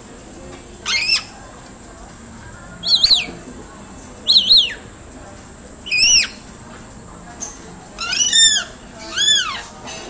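Rainbow lorikeets calling: a series of short, shrill screeches, each rising then falling in pitch, about one every second or two, coming closer together near the end.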